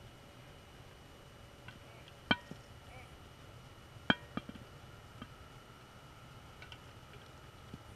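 A handful of faint, sharp clicks and ticks from diving gear heard underwater, scattered unevenly, two of them louder, over a faint steady tone.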